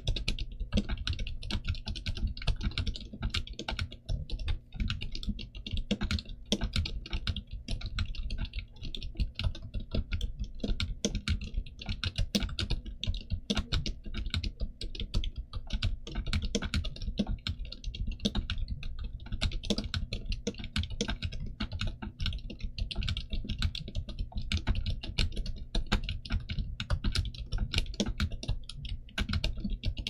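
Steady, fast typing on a stock Gamakay TK75 mechanical keyboard with Pegasus Silent Linear switches in a steel plate and dye-sub PBT Cherry-profile keycaps. The silent switches keep the keystrokes dampened, and they run on without pause.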